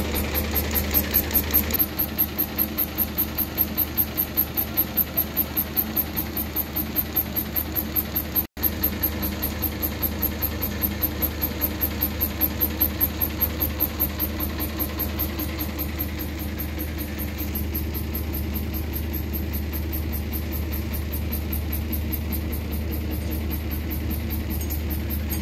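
Fabric pleating machine running: a steady low hum with a regular knocking pulse of about three beats a second, which softens into a smoother hum in the second half. The sound cuts out for an instant about eight seconds in.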